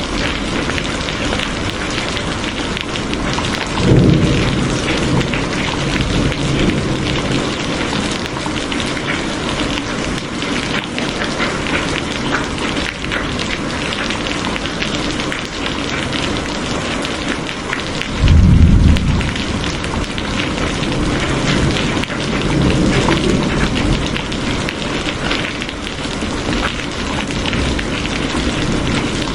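Steady rain falling, with thunder rumbling twice: a few seconds in and again, louder, past the middle.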